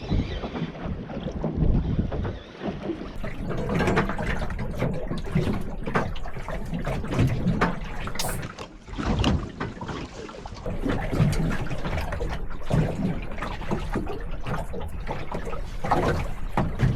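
Wind buffeting the microphone and water noise around a small boat, with irregular knocks and clicks from gear being handled on board.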